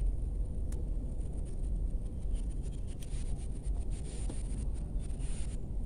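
Steady low background rumble with faint rustling and a few light clicks.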